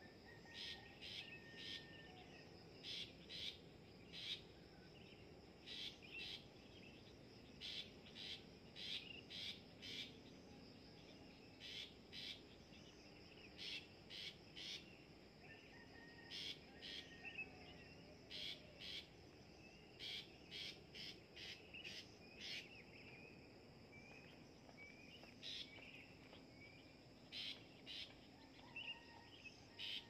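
Long-tailed shrike (pentet) giving short calls over and over in quick runs of two to four, with a few small chirps near the end. Behind them runs a steady high insect buzz.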